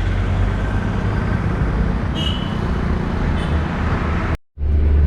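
Roadside traffic noise: a steady low rumble of passing vehicles. The sound cuts out completely for a moment about four seconds in, then resumes.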